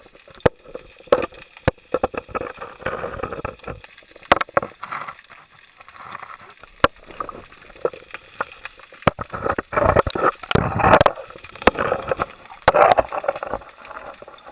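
Water splashing and sloshing, louder in two spells in the second half, with many sharp knocks and clicks throughout.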